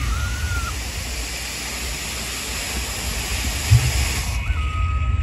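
Pyrotechnic spark fountains hissing steadily over a low rumble, the hiss stopping about four seconds in. A single thump comes just before the hiss ends.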